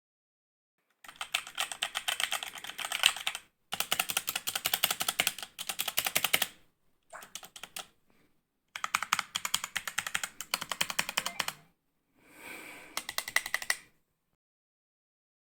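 Fast typing on computer keyboards, a rapid stream of key clicks, in several separate takes broken by abrupt silent gaps.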